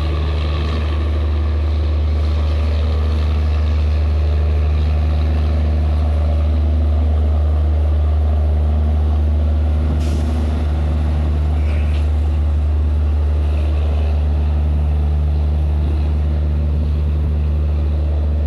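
Passenger train coaches rolling slowly past over a loud, steady low hum of running machinery. There is a single sharp metallic clank about ten seconds in.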